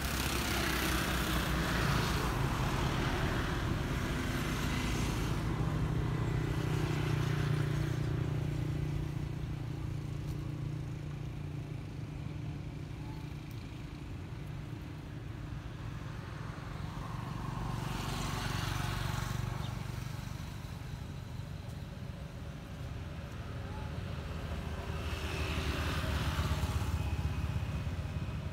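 Road traffic going by, its noise swelling and fading about three times over a steady low hum.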